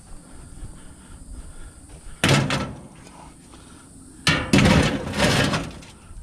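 Scrap items being handled onto a loaded trailer, clattering and scraping in two bursts: a short one about two seconds in and a longer one about four seconds in.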